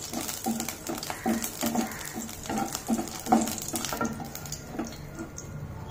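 Wooden spatula stirring dried red chillies in hot oil in a non-stick kadai: short scraping strokes, about two to three a second, over a light sizzle. The stirring stops about five seconds in.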